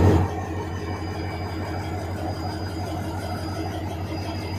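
GMU-30 diesel-electric locomotive idling: a steady low engine drone with a faint thin high whine over it, a little quieter shortly after the start.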